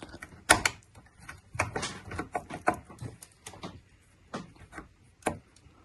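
Irregular small plastic clicks, taps and scrapes as an LCD display cap is lined up and pressed onto a CPU water-cooling pump block, going on stiffly; the sharpest clicks come about half a second in and near the end.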